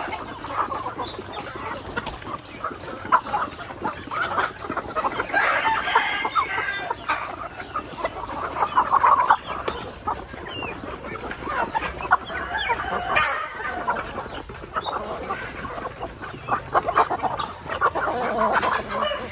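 A flock of Aseel chickens clucking as they feed together at a wire feeder, with many quick sharp taps of beaks pecking at the feed.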